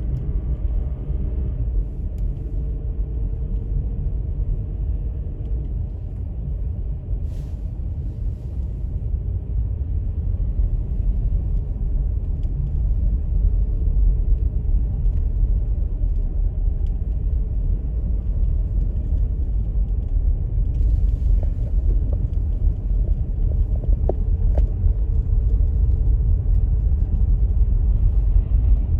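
Steady low vehicle rumble, like a car driving, getting a little louder about a third of the way in.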